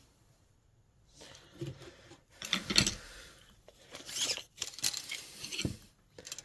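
Irregular rustling with scattered light clicks and knocks as hand tools (flat-blade screwdrivers) are picked up and moved about; the sharpest click comes a little under three seconds in.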